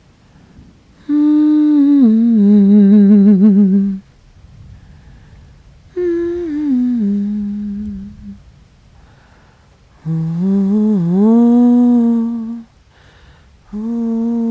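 A woman humming a slow lullaby in four phrases of two to three seconds each, the melody gliding down between notes, with a wavering vibrato on the held notes and short pauses between phrases.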